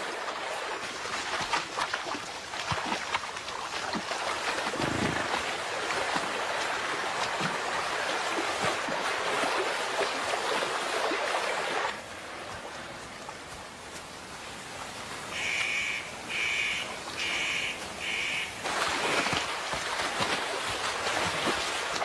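Rushing and splashing water of a shallow river as large animals wade through it, quieter about twelve seconds in. Around the middle a bird calls four times in quick succession.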